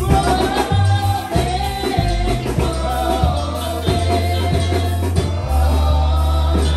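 A man singing a gospel song into a microphone over instrumental accompaniment, with deep held bass notes and a regular drum beat.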